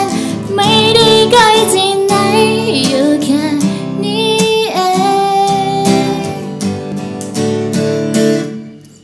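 School choir singing in harmony with instrumental accompaniment, the voices holding long notes with vibrato; the music fades out near the end.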